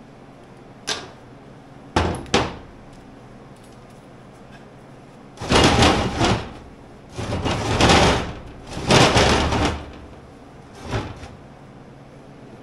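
Cut steel plate parts handled on a diamond-plate steel workbench: a few sharp clanks as pieces are set down, then three scraping slides of about a second each as they are pushed across the steel top, and one more clank near the end.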